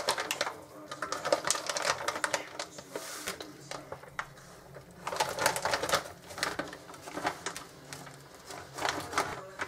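Baking paper crinkling and crackling in bursts as it is lifted and pulled to roll up a soft cheese roulade, loudest near the start, about halfway and near the end.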